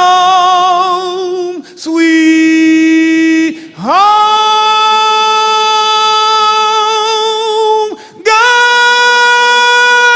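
A man singing solo without accompaniment, holding four long high notes with vibrato and brief breaths between them; he slides up into the third and longest note.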